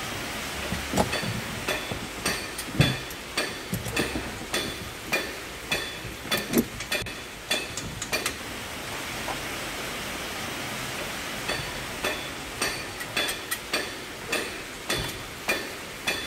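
Irregular clicks and knocks of hands working metal and plastic parts on a stripped pickup steering column, including locking pliers, with a lull around the middle. Under them runs a steady background hiss.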